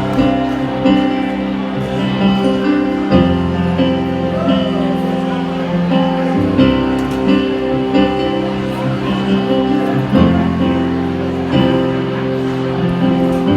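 Live rock band playing the instrumental intro of a ballad, with held guitar chords that change every couple of seconds and the low end filling out about three seconds in.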